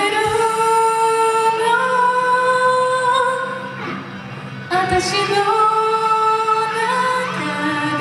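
A woman singing into a microphone over a karaoke backing track: two long, held phrases with a brief break about four seconds in.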